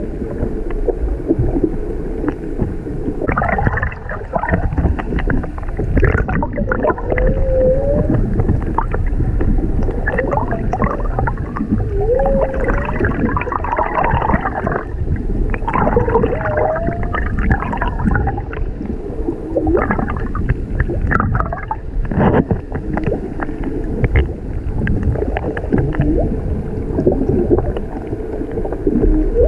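Humpback whale song recorded underwater: a string of short rising moans and higher wavering cries, over steady underwater noise with scattered clicks.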